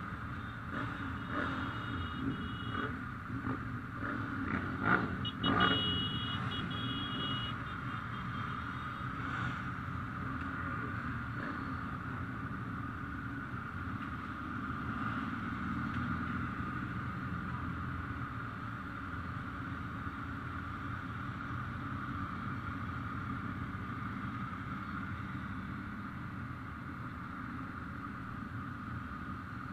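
Motorcycle engines running in a steady drone, with a few short sharp knocks and two brief high steady tones in the first eight seconds or so.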